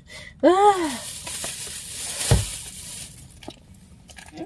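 Packaging crinkling as it is crushed in the hands, with a low thump about two seconds in. A short rising-then-falling hum of voice comes just before the crinkling starts.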